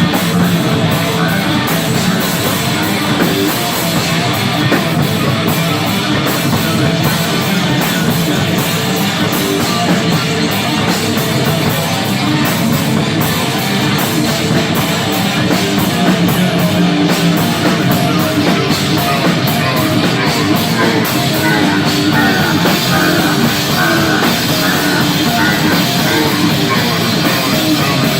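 Rock band playing live, heavy guitar-driven music over a drum kit.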